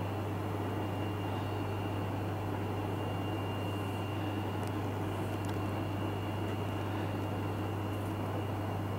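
Steady low electrical hum with an even hiss and a faint high whine, unchanging throughout, with a few faint ticks.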